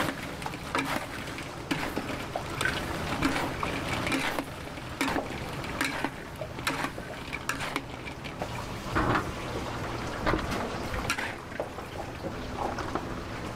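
Fried chicken pieces being stirred through sweet-and-sour sauce in a large steel wok, with a spatula scraping the pan and working the sauce in irregular strokes.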